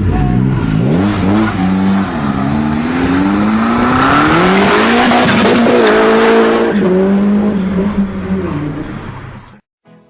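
Car engine revving up and down repeatedly, with a harsh hiss that builds over the middle of the run. The sound fades near the end and then cuts off abruptly.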